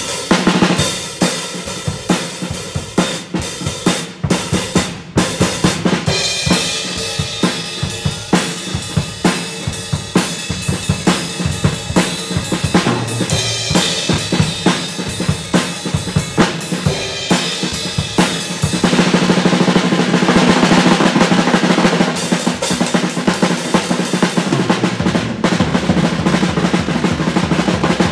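Instrumental band music carried by a drum kit: a steady beat of bass-drum and snare hits that turns denser and louder about two-thirds of the way through.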